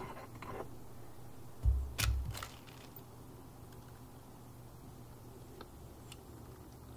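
Dull thumps and two sharp clacks about two seconds in, from a black steel cane bolt and its bracket being handled and set against a wooden gate; light rustling of hands before.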